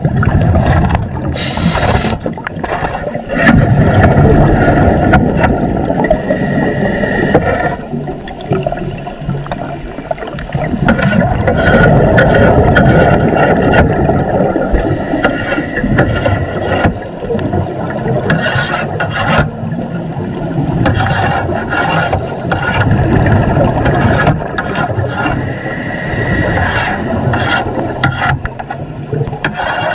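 Underwater scraping: a hand scraper grinding and knocking against metal bars as it strips off marine growth, with many sharp knocks through a dense, continuous rumble, over the bubbling of a scuba diver's exhaled breath.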